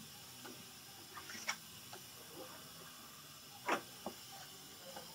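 A spreader scraping and tapping body filler on a mixing board: a few short scrapes, the loudest about two thirds of the way through, over a faint steady hiss.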